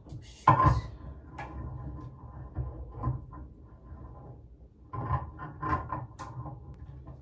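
Handling noises as a square rain shower head is twisted onto its shower arm: knocks and rubbing of the fitting, the loudest about half a second in and more around five to six seconds in.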